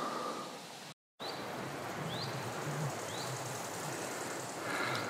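Forest ambience of a steady wind hiss, with a bird giving short rising chirps roughly once a second. The sound drops out completely for a moment about a second in.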